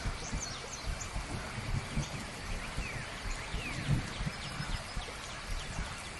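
Outdoor natural ambience: many small birds calling in short chirps and a couple of longer falling whistles, over a steady hiss and an irregular low rumble.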